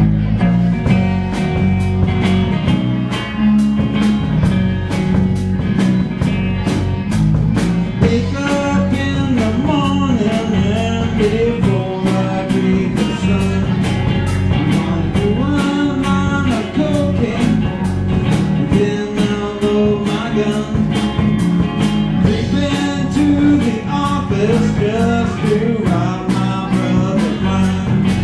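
Live rock band playing: a drum kit keeps a steady beat over bass and electric guitar, and a lead part bending in pitch comes in about eight seconds in.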